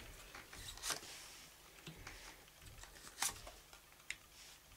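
Tarot cards drawn from the deck and laid down on a velvet cloth: a few faint, short card slides and soft taps, the clearest about a second in and just past three seconds.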